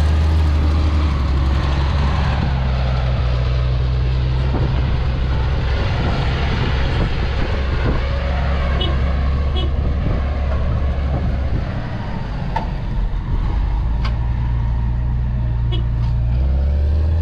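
Steady low diesel engine drone of a vehicle moving across a field, stepping in pitch a few times, with rumble and a few faint ticks over it.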